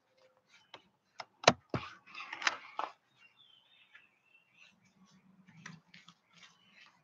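Clicks, knocks and rustling from a phone camera being handled and repositioned, loudest from about a second and a half to three seconds in. Then a faint bird call, a thin wavering whistle, followed by a few soft ticks.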